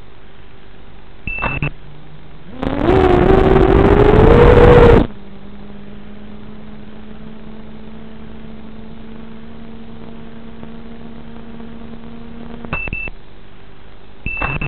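FPV quadcopter's brushless motors on the ground: a short beep as it arms, then a rising whine as the motors are throttled up for about two and a half seconds, settling into a steady idle hum. The hum stops with a short double beep near the end as the quad disarms, followed by another double beep.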